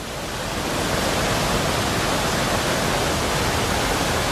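Large fountain's water pouring off the top and splashing steadily into its basin, a constant rushing that grows a little louder in the first second.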